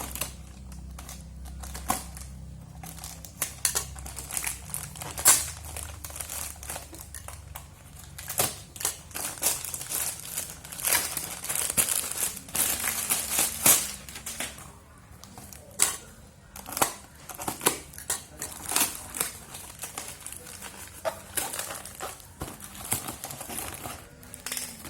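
Packaging being handled and opened in an unboxing of a 5/8-inch threaded hose connector: irregular crinkling and rustling with many sharp clicks, busiest in the middle.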